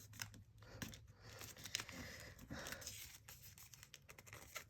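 Faint crinkling and creasing of folded origami paper being handled, with many small crackles and a longer rustle about two seconds in.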